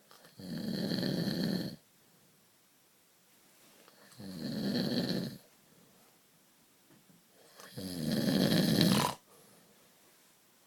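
Snoring: three long, rasping snores about 3.7 seconds apart, each lasting more than a second, with the third the loudest.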